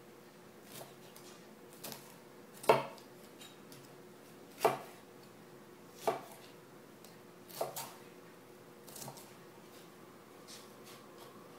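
Kitchen knife slicing an orange bell pepper into strips on a plastic cutting board: single knocks of the blade on the board at uneven intervals, about one every second or two, the loudest nearly three seconds in.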